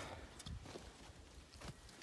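Quiet background, close to silence: a faint low rumble with a few soft clicks.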